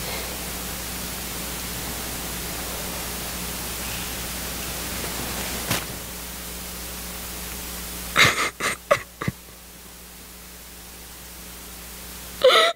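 Steady hiss with a low hum, a single click about six seconds in, then a woman sobbing in a few short, sharp gasps, with another burst of sobs near the end before the sound cuts off.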